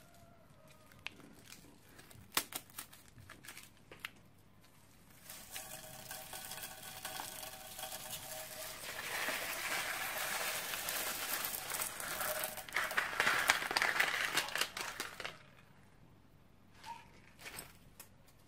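Clear plastic piping bag crinkling as it is handled and squeezed, with a dense crackling rush of small beads pouring out onto slime from about five seconds in to about fifteen seconds. A few separate crinkles and clicks come before it and twice near the end.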